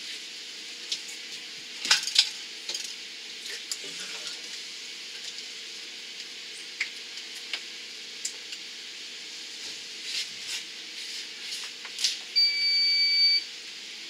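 Scattered clicks and knocks of PVC pipe and fittings being handled as a sump pump is worked down into its pit, over a steady hiss. Near the end, a single high electronic beep lasting about a second.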